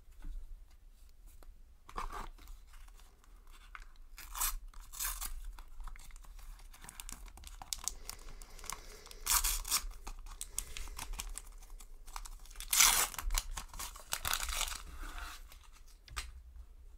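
A Panini sticker packet being torn open by hand, its wrapper ripping and crinkling in several short bursts, the loudest about three-quarters of the way through.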